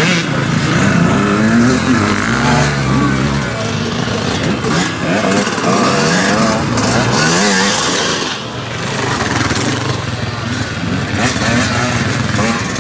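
KTM 125 single-cylinder two-stroke enduro motorcycle engine revving hard under acceleration. Its pitch climbs and drops back again and again as the rider works the throttle and shifts through the gears.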